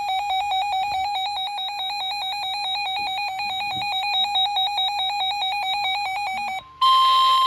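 A weather radio receiver's alert alarm: a buzzy electronic tone warbling rapidly between two pitches. It cuts off about six and a half seconds in, and the broadcast audio comes on with the NOAA Weather Radio 1050 Hz warning alarm tone, a steady beep over radio hiss, which announces a new warning.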